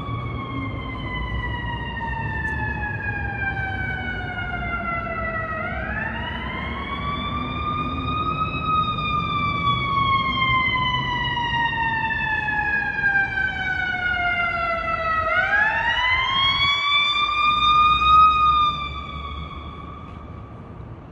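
Emergency vehicle siren wailing, with two cycles of a long, slow fall in pitch followed by a quick rise. It fades near the end, over a low rumble of city traffic.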